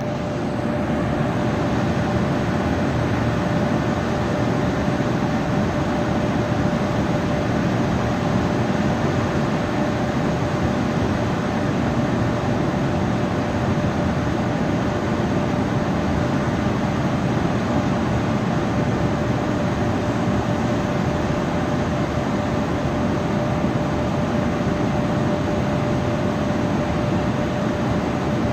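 A steady, unchanging drone of noise with a single constant tone held through it, like a machine running continuously.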